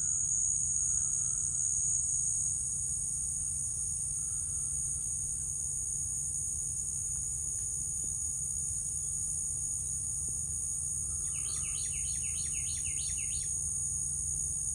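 Steady, high-pitched chorus of insects such as crickets trilling without a break, over a low steady hum. About three-quarters of the way through comes a short run of about eight quick chirps.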